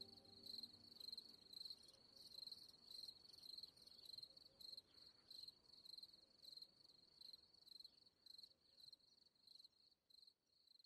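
Faint cricket chirping: a high pulsed trill repeating about twice a second, fading away near the end.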